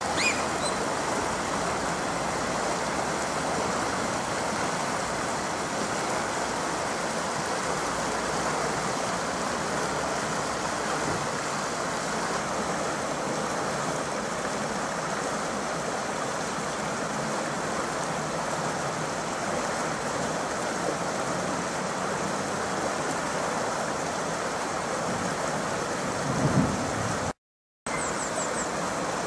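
Steady rush of flowing river water, which cuts out for a moment near the end.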